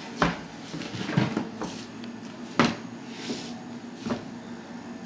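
A toddler's footsteps in a man's oversized shoes: irregular clomping knocks on a hard floor, about six in all, the loudest about two and a half seconds in.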